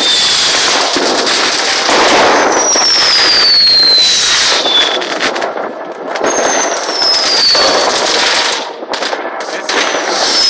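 Fireworks and firecrackers going off in a continuous barrage of overlapping bangs and crackling. Two whistling fireworks sound through it, each falling in pitch over one to two seconds.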